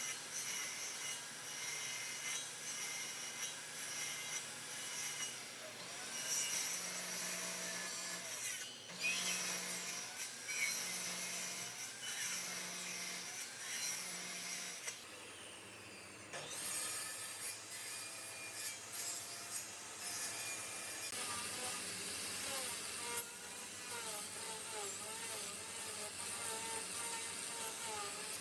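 Wood being worked with a tool, a rasping, rubbing sound like sawing or sanding, with a short break about halfway through.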